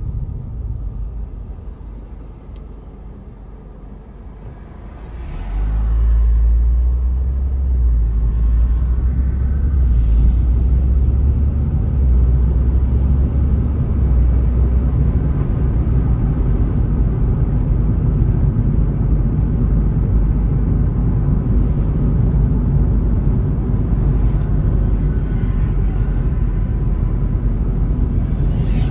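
Road and wind rumble heard from inside a car. It is quiet while the car is stopped at an intersection, then rises sharply about five seconds in as the car pulls away. After that it holds as a steady deep rumble while the car drives on.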